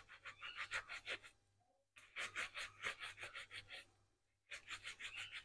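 Potatoes being scrubbed by hand at the sink: faint, quick rubbing strokes, about six a second, in three short bursts.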